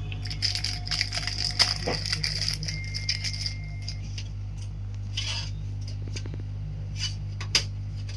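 Light clicks and clinks of small hardware being handled during a PC assembly, thickest in the first few seconds, with two sharper clicks near the end, over a steady low electrical hum.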